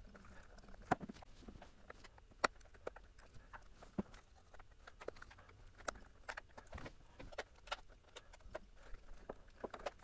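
Scattered faint clicks and taps as a polycarbonate/ABS power-adapter case is handled and probed with a small screwdriver, hunting for how it opens. The taps come irregularly, about a dozen, with sharper knocks about one, two and a half and four seconds in.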